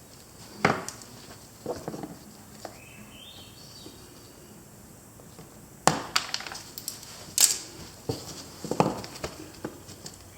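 Plastic clicks and knocks as push-pin fasteners are popped out and a plastic access cover on an ATV is worked loose, with a brief rising squeak about three seconds in.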